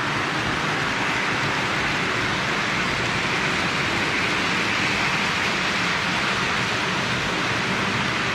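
O gauge toy trains running on three-rail track: a steady rolling rumble and hiss of metal wheels and motors, swelling a little midway as a passenger train passes, then a coal train.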